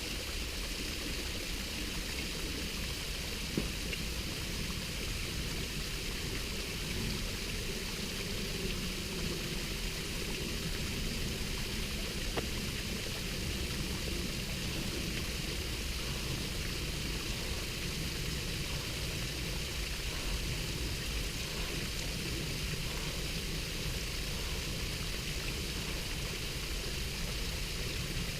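Steady rushing of a mountain stream and small waterfall, with two faint clicks a few seconds apart.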